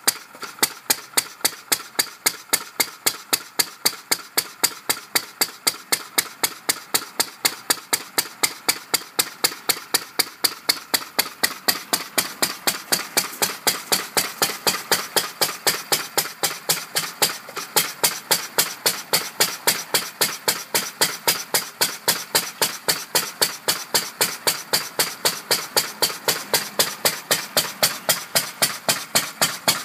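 Lister A single-cylinder stationary engine running steadily, driving the generator that powers the lights. Its exhaust gives a sharp, even beat about five times a second.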